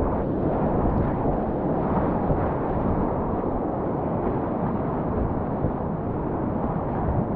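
Steady rushing of river whitewater, heavy and low in pitch, with no clear individual splashes.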